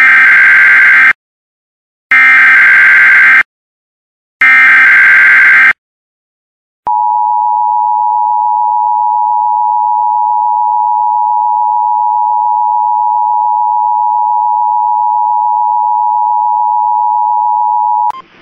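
Emergency Alert System tornado warning header: three loud, harsh digital data bursts, each about a second long with short gaps between, then after a pause a long steady alert tone of about eleven seconds that cuts off near the end.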